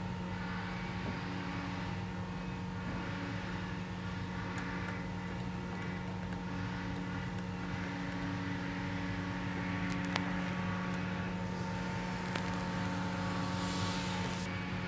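A steady low hum with a few faint higher tones fading in and out, and a few faint metallic clicks about ten seconds in as clamp hardware is tightened by hand and wrench.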